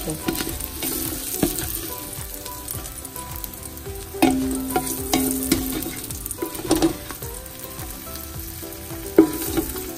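Oil sizzling in a frying pan with a few sautéed onion and bell pepper pieces while a utensil scrapes and clicks against the pan, scooping the vegetables out. About four seconds in, a brief low steady tone rises above the sizzle for about a second and a half.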